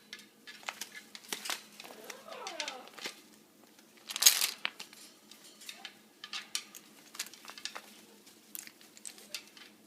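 Pet birds moving and clicking, with scattered small clicks and rustles, a falling whistled call about two seconds in, and a short loud harsh burst about four seconds in.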